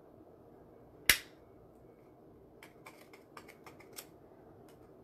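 A small jewelry hole punch snapping through a thin aluminum tin sign with one sharp click about a second in, followed by a run of faint clicks.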